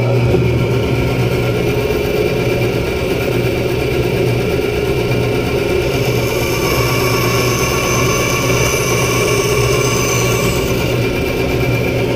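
Bandsaw running with a steady hum, its blade cutting through a block of wenge from about six seconds in until about ten and a half seconds.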